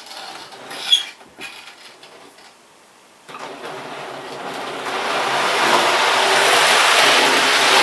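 Motorised OO gauge model Pullman train running round the track at full controller speed: motor hum and wheels running on the rails, starting suddenly about three seconds in and growing louder over the next couple of seconds. Before that, a few light clicks of the train being set on the track.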